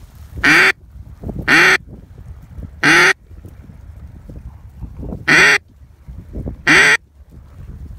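Duck call blown by a hunter in single loud, short quacks, five times at uneven gaps of one to two and a half seconds, to draw in ducks circling overhead.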